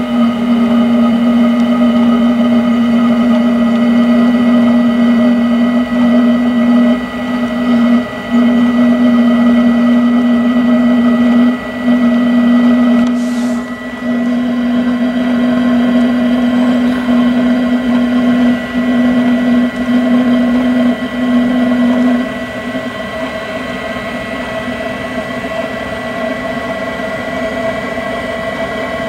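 Webasto diesel-fired auxiliary heater under a 2001 Dodge Cummins pickup running, its combustion blower motor giving a steady hum with a few brief dips. About three-quarters of the way through the strongest part of the hum cuts off, leaving a quieter steady running sound.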